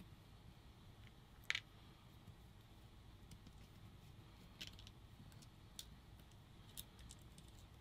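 A few faint, short metallic clicks of a small hex key working the screws out of a paintball marker's frame, the sharpest about a second and a half in, over near silence.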